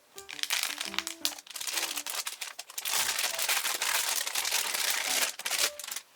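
Loud crinkling and rustling of material being handled, running from just after the start until near the end, over soft piano and guitar background music.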